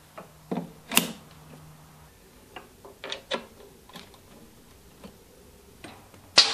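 Plastic-and-metal clicks and knocks of cable connectors being pushed and twisted into the front sockets of a Hypertherm Powermax 45 XP plasma cutter. About a dozen light taps are scattered over several seconds, with a sharper click near the end.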